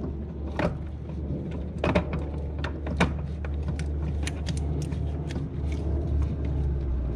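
Needle-nose pliers working a small part in a car's engine bay: a scatter of short, sharp metal clicks and taps over a steady low rumble.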